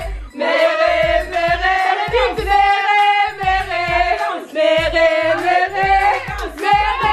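Music: a song with sung vocals holding long notes over a pulsing bass beat.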